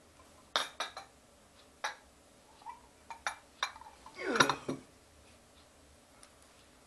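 A few sharp clinks and knocks, then a louder rattle about four seconds in: a china teacup clattering on its saucer as it is set down on a table.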